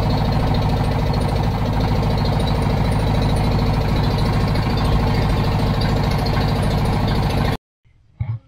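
A boat's engine running steadily with a low, rapid pulse, heard from the deck while under way. It cuts off abruptly near the end.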